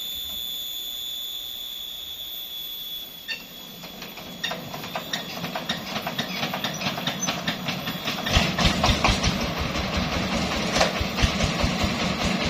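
Diesel engine of a mobile circular sawmill being started: a run of quickening clicks and knocks, then about eight seconds in it catches and runs with a steady low chugging. A steady high-pitched tone sounds for the first three seconds.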